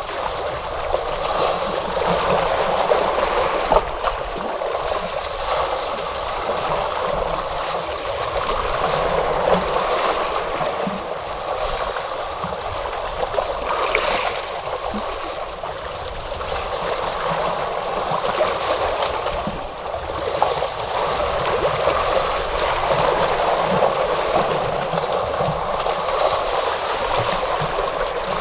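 Ocean waves washing in, a continuous rush of water that swells and eases every few seconds.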